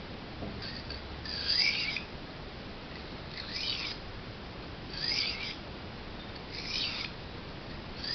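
A knife blade stroked across a whetstone, a rasping scrape roughly every second and a half, about four strokes.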